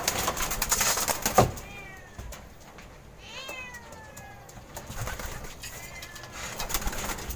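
Racing pigeon's wings clattering briefly as it is released, ending in a louder knock. Then three short, high calls, each falling in pitch, a second or so apart.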